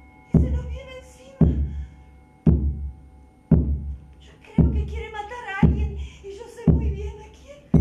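A deep, booming drum-like thud repeating about once a second, like a slow heartbeat, from a theatre sound score. Faint steady tones hang beneath it, and a woman's voice comes in over the beats in the second half.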